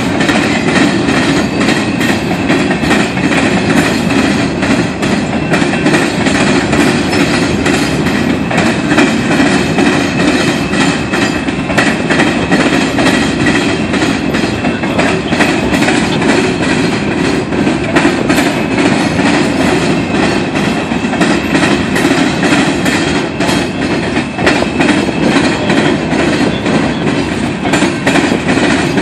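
Freight train's hopper cars rolling past on steel rails: a steady, continuous rumble, dense with clicks as wheels cross rail joints.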